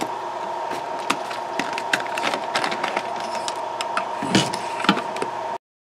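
Plastic clicks and knocks from a spray bottle and its unscrewed trigger head being handled, over a steady thin hum. The sound cuts off suddenly about five and a half seconds in.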